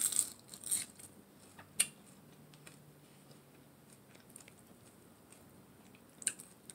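Mouth-close crunching of fried shrimp being bitten and chewed: a cluster of crisp crunches in the first second, another about two seconds in, then quieter chewing, with a couple of crunches near the end.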